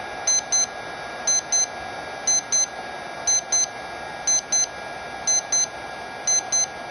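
ThermoPro digital thermometer's temperature alarm beeping in short high double beeps, about one pair a second, over the steady rush of a heat gun blowing at full power.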